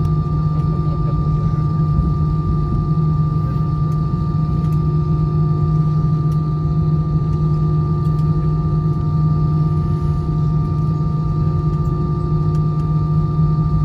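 Steady drone inside an Airbus A320's passenger cabin on the ground after landing: a low hum with several steady whining tones above it, unchanging throughout.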